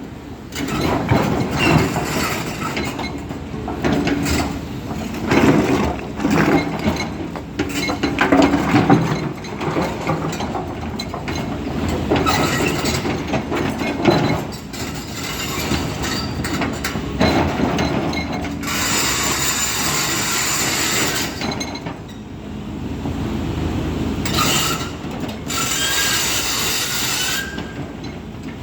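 Crawler excavator travelling on steel tracks, the track chain clanking and squealing continuously. A two-second rush of high hissing noise comes about two-thirds of the way in, and another near the end carries a thin squeal.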